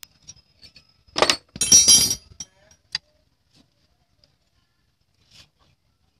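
Metal clinking and rattling: two short loud bursts with a ringing edge about a second in, from spanners and nuts knocking on the Vespa PX engine's cylinder. Then a few faint clicks and light scrapes as the cast-iron cylinder is worked off its studs.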